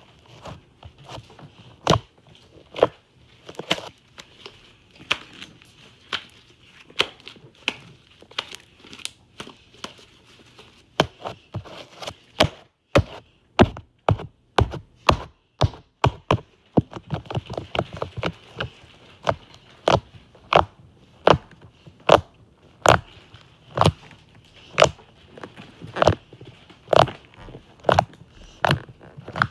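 Sticky cloud slime being pressed and pulled close up, making a string of sharp, wet pops and clicks at about one or two a second, with quicker runs near the middle.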